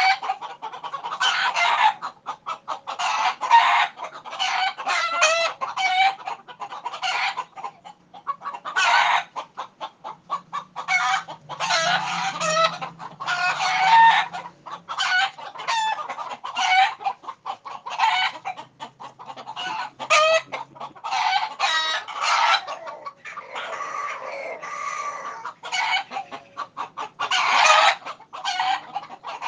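Frightened roosters squawking and clucking in alarm: a dense run of short, loud, harsh calls in quick succession, with a few longer calls among them.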